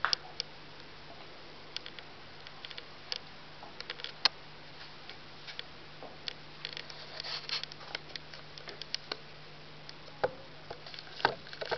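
Scattered light clicks and knocks at irregular intervals over a faint steady hum.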